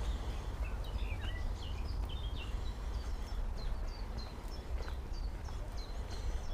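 Small birds chirping, ending in a run of short, high, falling notes repeated about three times a second, over a steady low rumble on the microphone.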